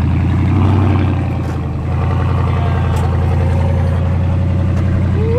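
Ram Power Wagon pickup's V8 engine running at low revs as the truck crawls up a rock ledge off-road. The revs rise briefly under a second in, ease off, then hold steady.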